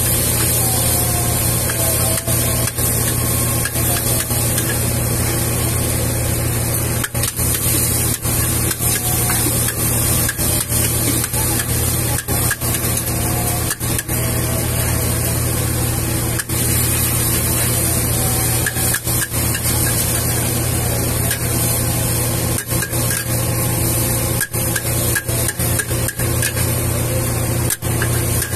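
Metal spatula scraping and knocking against a large iron wok as noodles are stir-fried, in short irregular strikes, over a steady loud low roar and hiss.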